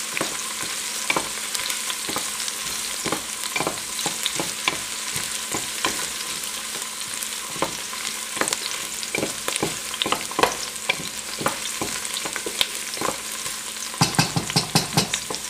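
Chopped onions sizzling in hot vegetable oil in a metal pot over medium heat as they soften, with a utensil scraping and clicking against the pot while stirring them; a quick run of scrapes near the end.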